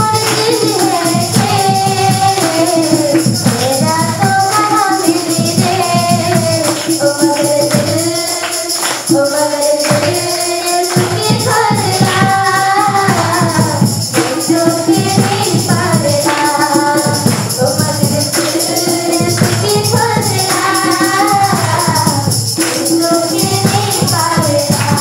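Music: a sung melody over a steady beat, with jingling percussion throughout.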